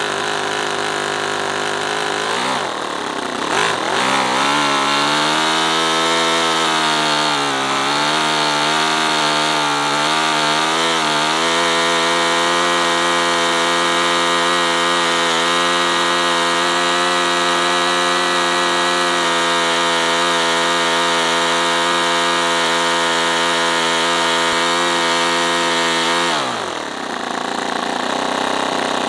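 Toyan FS-V800 28cc nitro V8 model engine, running through open exhaust collectors cut from its mufflers, revs up hard from a lower speed about three seconds in. It wavers for several seconds, then holds a steady scream at full throttle around 10,300 RPM, and drops back to a lower steady speed near the end.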